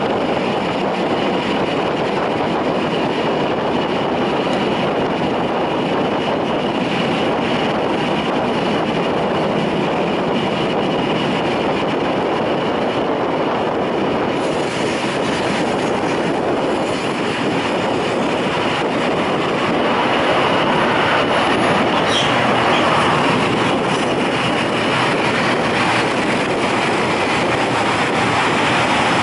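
Narrow-gauge diesel railcar running along the track: a steady rumble of engine and wheels on rail. It grows a little louder about two-thirds of the way through, with a brief high squeak from the wheels shortly after.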